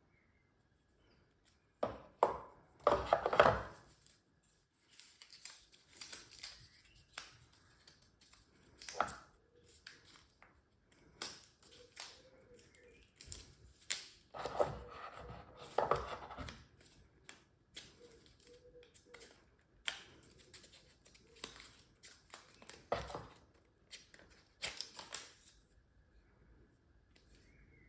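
Hands handling a GoPro camera, its accessories and packaging: irregular rustling and scraping with scattered clicks and knocks, loudest about three seconds in and again around fifteen seconds in.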